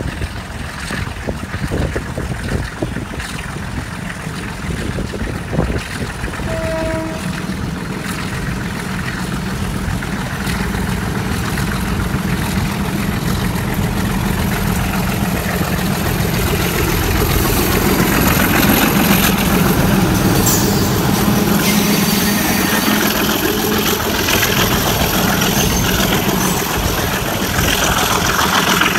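Sri Lanka Railways Class M4 diesel-electric locomotive's V12 Alco engine running under power as it approaches hauling passenger coaches, its steady low engine note growing louder over the first twenty seconds. Near the end the coaches roll past close by over the rails.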